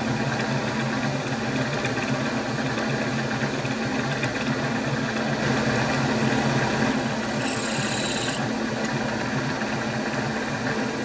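Milling machine spindle running steadily as a drill bores a cross hole into a small metal block, with a brief high-pitched squeal about three-quarters of the way through.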